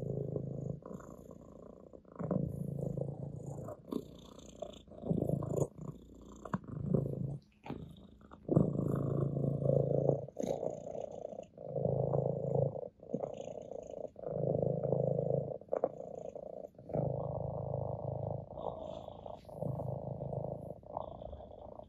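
Orange tabby cat purring steadily while being stroked, the purr swelling and easing with each breath every couple of seconds.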